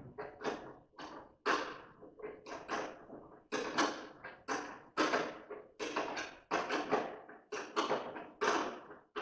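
A wrench tightening the bolts of a metal three-way duct fitting on a dust collector's blower housing: a run of short metallic strokes, two or three a second.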